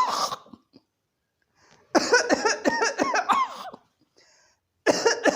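A child coughing in repeated fits, each bout a second or two long with silent gaps between. It is the paroxysmal cough that ends in vomiting, of the kind the doctor treats with Mephitis in children.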